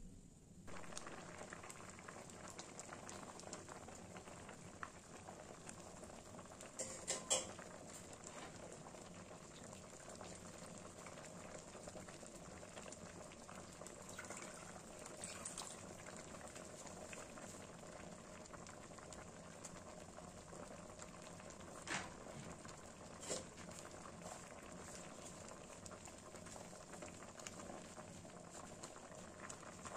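Pumpkin, tomato and fish simmering in water in an aluminium wok, with a steady bubbling. A few sharp knocks of the spatula against the pan, the loudest about seven seconds in and two more near 22 seconds.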